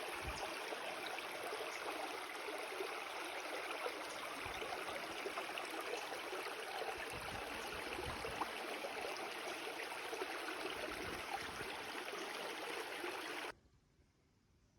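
Steady rush of running water, cutting off abruptly about a second before the end.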